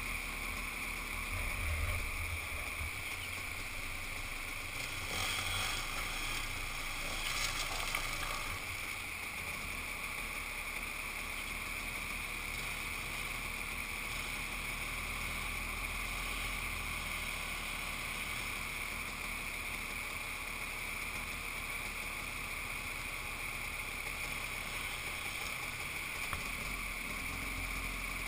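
Dirt bike engines idling steadily, heard muffled and low, with a few louder surges of noise about five to eight seconds in.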